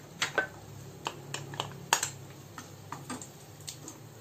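Cashew nuts and raisins tipped into a nonstick frying pan and turned with a wooden spatula: scattered light clicks and taps of nuts and spatula against the pan, over a low steady hum.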